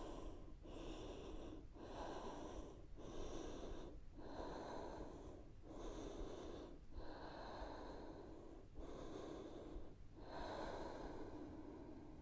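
A woman breathing hard while she recovers from exertion: faint breaths in and out, each about a second long with short pauses between, about ten in all.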